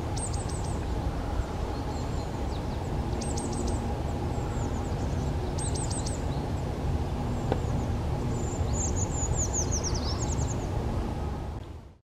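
Treecreeper calling: very high, thin notes in short falling clusters of three or four, repeated a few times, then a longer run of falling notes near the end. A steady low rumble lies under it, and everything fades out at the very end.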